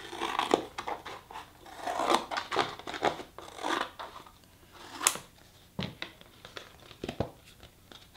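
Scissors cutting down the crease of a foil-lined drinks carton: a run of crunching snips with crinkling of the board over the first four seconds. Then comes one sharp click about five seconds in and a few fainter knocks.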